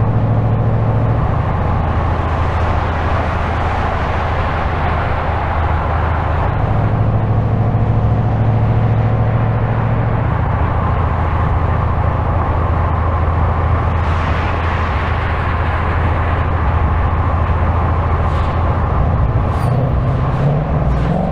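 2025 Ford Mustang GT's 5.0-litre V8 running at a steady cruise under an automatic gearbox, a low drone whose pitch steps a few times, over tyre and road noise.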